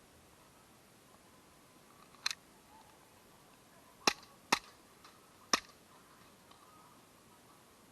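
Four sharp airsoft gun shots: one about two seconds in, then three more between about four and five and a half seconds in.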